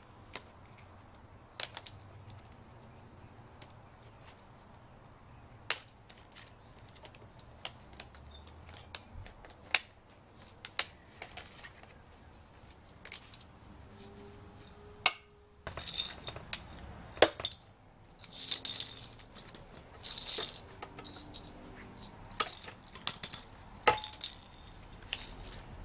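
Scattered small metal clicks and clinks as screws and a thin sheet-metal end cover are worked off a Nissan Leaf battery module stack with metal hand tools. The handling gets busier about halfway through, with quick rustling and scraping between the clinks.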